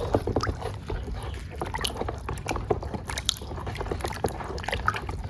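Water sloshing and splashing as a muddy plastic toy vehicle is washed by hand, with many small clicks and knocks of the plastic being handled.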